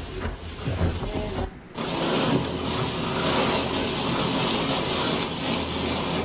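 Steady rushing noise of a storm's wind and driving rain on the microphone, with a brief drop-out about a second and a half in.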